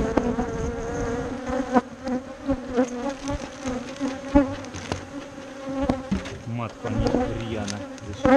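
Loud, steady buzz of many agitated, defensive honeybees swarming around an open hive, a low hum with overtones. Several sharp knocks cut through it, the loudest about two and four and a half seconds in.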